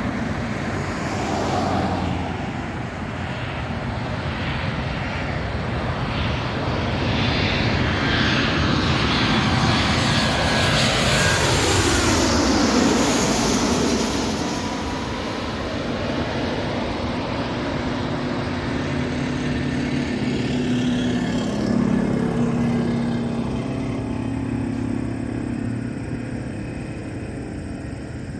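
Delta Boeing 737-900ER's CFM56-7B turbofan engines on landing approach, passing low overhead with the gear down. The engine whine and rumble build up and are loudest about twelve seconds in, the pitch falling as the airliner goes by, then fade as it moves away.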